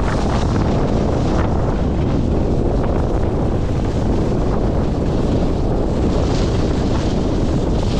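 Wind buffeting a GoPro 10 microphone on a ski pole during a fast downhill ski run: a loud, steady rumbling rush with no break.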